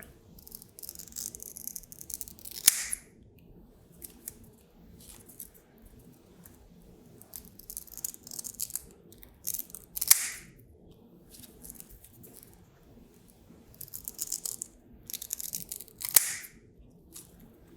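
Scissors cutting Velcro hook-and-loop tape lengthwise into narrow strips: three spells of crunchy snipping, each ending in one sharp snip.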